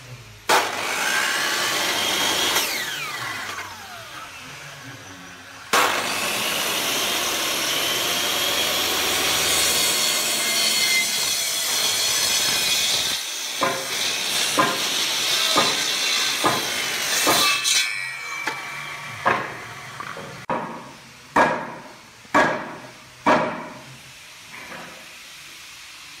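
Electric miter saw cutting carved wooden moulding. It cuts for about two seconds and then winds down with a falling whine. It starts again about six seconds in and cuts steadily for about seven seconds, and is followed by about a dozen sharp, separate knocks.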